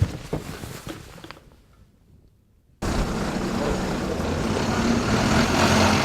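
A few light knocks and clicks fade to near silence. About three seconds in, the sound cuts abruptly to steady outdoor traffic noise with a low engine hum.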